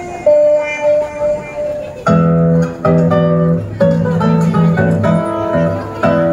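Music, played back to accompany a mime act: a held melody line, then from about two seconds in, plucked chords in a steady rhythm.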